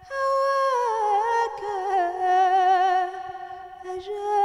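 A woman singing a Sufi song unaccompanied: one long, ornamented, wordless phrase that slides down in pitch over the first two seconds, then wavers on. It dips briefly near the end before she picks up again.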